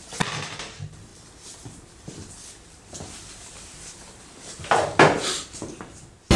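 Soft rustling of paper banknotes being handled and counted by hand in a small, quiet room, with a louder burst of rustling and knocks about five seconds in.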